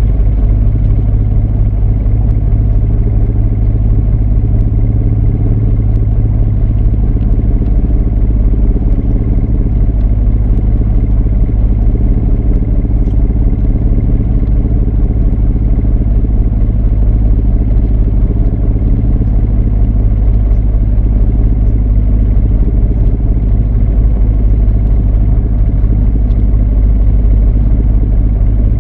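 Fishing boat's inboard engine running steadily, a deep even drone that holds the same pitch throughout.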